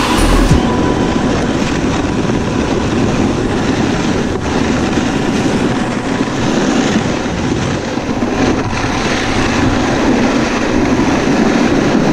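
Snowboard sliding and carving down a groomed run: a steady, loud scraping rush of the board on snow mixed with wind over the camera's microphone.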